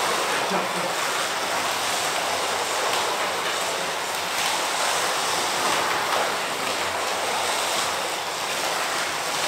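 Slot cars running around a plastic track: their small electric motors and tyres make a steady, even whirring hiss.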